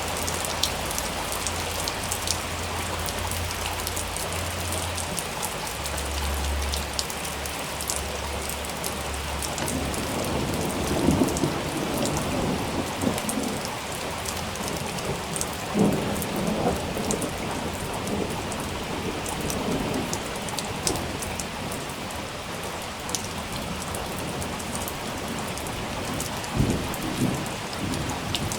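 Steady rain falling, with many separate drops ticking. A low rumble of thunder runs through the first third, and a few louder thunder rolls come later.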